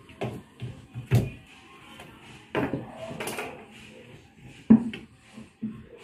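Washing-machine parts of hard plastic being handled during repair: a few sharp knocks, the loudest a little past one second and near five seconds, with scraping and rustling around three seconds.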